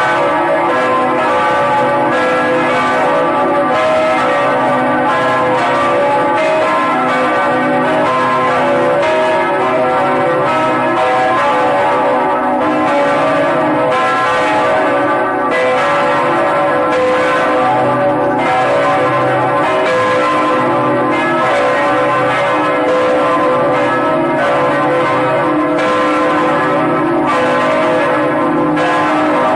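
Several large bells ringing together in a continuous peal, one strike following another so that their tones overlap and keep ringing.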